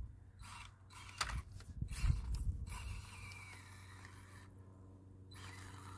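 Small 1/24-scale Axial SCX24 RC crawler with a brushless motor, its motor and gears whirring faintly while the tires and chassis click and scrape over rough ground as it crawls.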